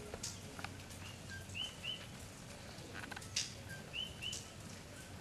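Small birds chirping: short, arched chirps, often two in quick succession, with a few brief higher, sharper notes between them.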